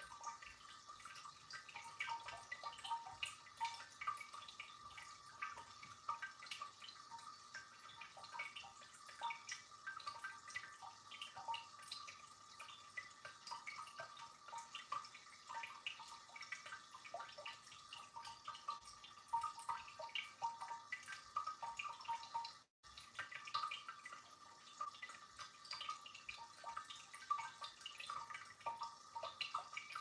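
Tabletop ceramic cascade fountain, water trickling from jar to jar in a continuous run of small irregular drips and plinks. Faint, with a very brief drop-out about two-thirds through.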